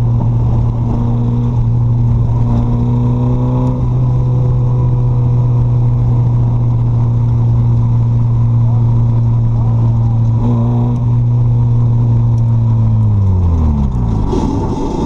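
Naturally aspirated Mazda Miata 1.6-litre four-cylinder engine in an Exomotive Exocet, running under load at steady, high revs. About two seconds before the end the revs drop away as the throttle is lifted.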